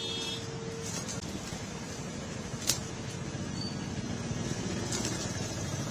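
Street traffic noise, a steady rumble of passing vehicles, with a single sharp knock about two and a half seconds in.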